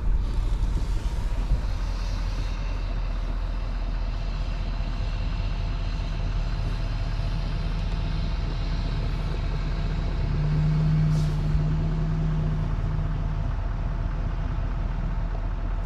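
Snow-plow truck's engine running steadily with a low rumble; a steady hum comes up about ten seconds in and holds for some three seconds.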